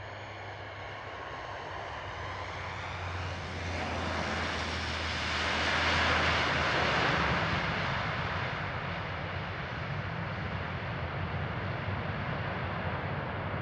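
Dash 8 Q400 turboprop with Pratt & Whitney PW150A engines rolling out on the runway after touchdown: a low propeller drone under a rushing engine noise that swells as it passes about six seconds in, then eases off as it slows down the runway.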